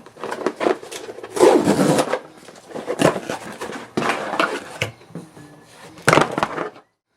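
Hands rustling packaging and knocking and clattering cables and accessories as they are unpacked, with a few sharp knocks; the sound cuts off suddenly near the end.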